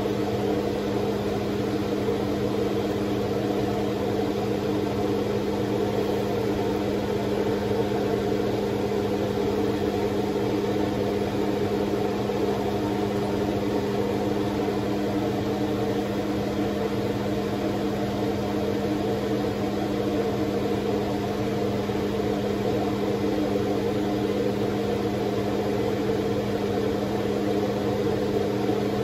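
Steady, unchanging hum of a running appliance motor.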